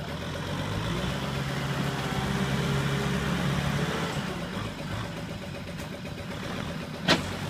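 Kubota M6040SU tractor's four-cylinder diesel engine working hard under load as it tries to pull a loaded trailer out of deep mud, building up about a second in and easing off after about four seconds. A single sharp knock near the end.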